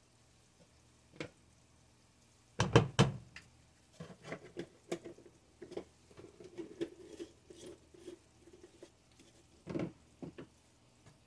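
A utensil knocking and tapping against a cooking pot as onions, bell peppers and garlic are stirred in it. A cluster of knocks comes about three seconds in, followed by lighter taps and scraping, and another knock near the end.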